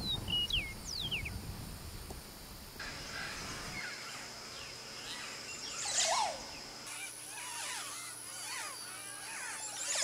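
Eastern meadowlark singing a few clear, slurred whistles that fall in pitch in the first second. From about three seconds in, Montezuma oropendolas call, with many chattering notes and a louder liquid, falling gurgle about six seconds in and again at the end.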